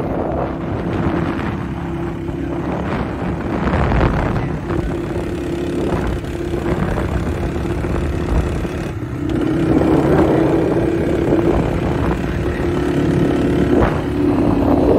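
Motorcycle engine running steadily under way on a climbing road, over a rush of wind and road noise; the engine note drops briefly about nine seconds in, then picks up again.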